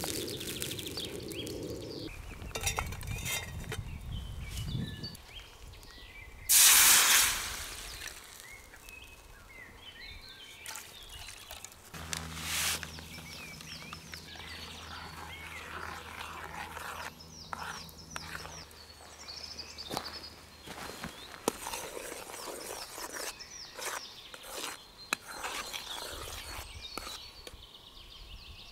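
Small birds chirping and singing in woodland, with occasional clinks of a metal pan and cooking gear at a small campfire. About 7 s in comes one loud rushing hiss lasting about a second, the loudest sound here.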